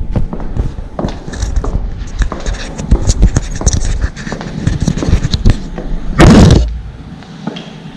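High-heeled shoes clicking step after step while walking, over a low wind rumble on the microphone that dies down near the end. A loud, short rushing noise comes about six seconds in.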